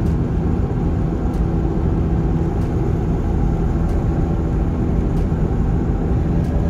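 Steady road and engine noise inside the cabin of a car driving at highway speed.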